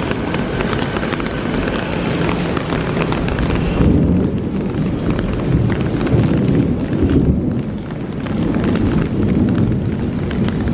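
Heavy thunderstorm rain pouring, with a dense patter of drops on hard surfaces and a deep rumble that swells about four, six and nine seconds in.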